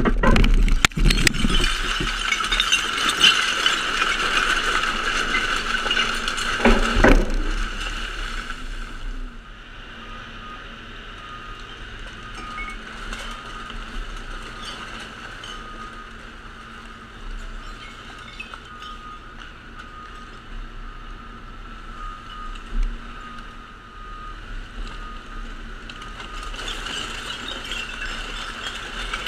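Garbage truck's hydraulic ejector running steadily with a whine as it pushes a compacted load of recycling out the back, with scattered clinks and rattles from the falling recyclables. There is a sharp knock about seven seconds in, after which the sound drops to a quieter steady drone, growing louder again near the end.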